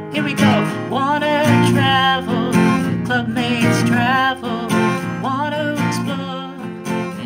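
Jingle music: strummed acoustic guitar with a wavering lead melody over it.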